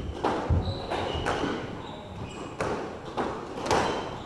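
A squash ball being struck and hitting the court walls: a string of sharp smacks, irregularly spaced, with short high squeaks of sneakers on the wooden floor between them.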